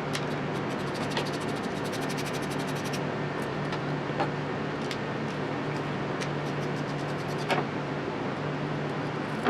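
A ratchet turning a 10 mm socket clicks rapidly for about a second, backing out coil pack bolts. A few single clicks and knocks follow, one louder near the end, over a steady low hum.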